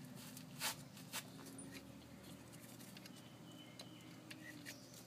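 Gloved hands handling a VW Jetta's ABS wheel-speed sensor and its wire at the front wheel hub: faint rubbing with a few small clicks, the sharpest about two-thirds of a second in and another just after a second.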